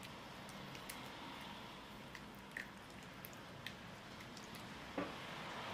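Silicone spatula mashing and stirring softened butter in a bamboo bowl: faint squishing with scattered light taps against the wood, one louder tap about five seconds in.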